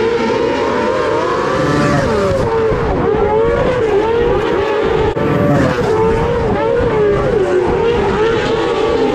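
A pack of small open-wheel dirt-track race cars running together, several engines at once rising and falling in pitch as they come off and back on the throttle through the turn and pass close by one after another.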